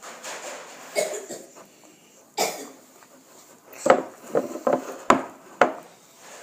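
Sticky glue slime being stirred and worked in a bowl: a series of short wet smacks and clicks, coming faster in the second half.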